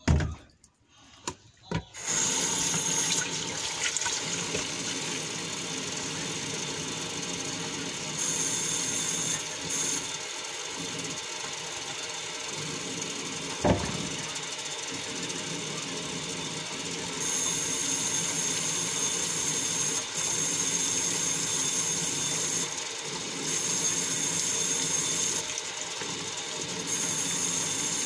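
Tap water running steadily into a plastic dish-soap bottle and a stainless steel pot in the sink, the soapy water foaming up; it starts about two seconds in and its hiss swells and drops at times as the flow shifts. A single sharp knock about halfway through.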